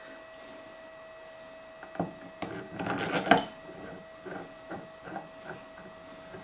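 Small steel parts of a lathe's quick-change tool post clinking and scraping as a slotted ring and nut are seated on top of the tool post body. The handling is loudest about two to three and a half seconds in, followed by a few light taps. A steady high hum runs underneath.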